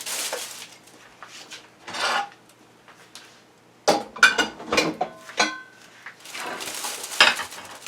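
Dishes and kitchen utensils clinking and knocking, a cluster of sharp clicks about four to five and a half seconds in, some briefly ringing, between short rustling swishes.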